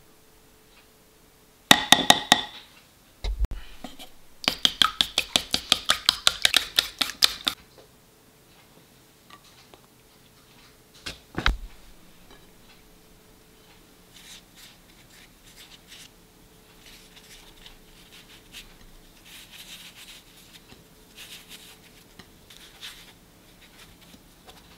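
A metal spoon clicking sharply a few times, then eggs beaten in a wooden bowl with a utensil: a rapid, even clicking, about six strokes a second, for about three seconds. A single knock follows, then faint soft rubbing and patting as shiitake caps are dusted in flour on a plate.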